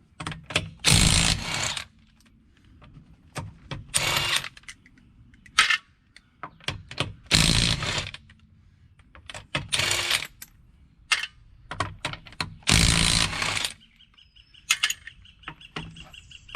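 Impact wrench with a 21 mm socket run in about five short bursts, spinning off the lug nuts of a car's rear wheel. Sharp metallic clicks and clinks of the loose nuts and socket come between the bursts.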